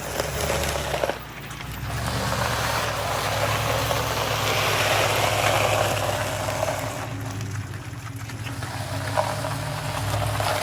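Heavy diesel truck engine running steadily at a job site, from the concrete truck or the concrete pump truck being set up for the pour.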